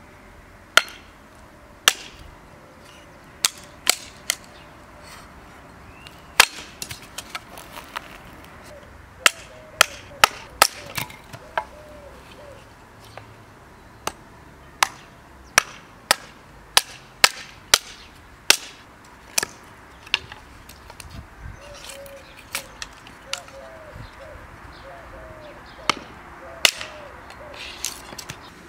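Hatchet splitting a stick of wood into kindling on a chopping stump: many sharp, irregular blows of the blade into wood, some in quick pairs.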